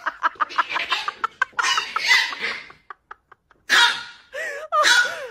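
A cat and a small dog squabbling at close quarters. A fast run of short clucking sounds comes first, then harsh, noisy calls, some with a wavering pitch, like growls and hisses.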